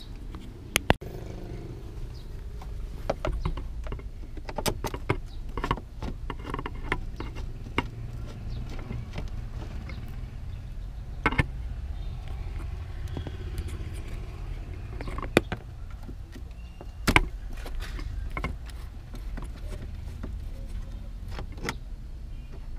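Scattered clicks and knocks of a screwdriver and plastic trim as screws are worked out of a car's dashboard panel, with a few sharp, loud taps among them, over a steady low rumble.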